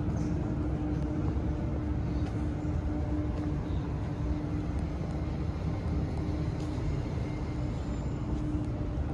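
Steady low mechanical rumble with a constant hum, like an engine running, and a few faint clicks.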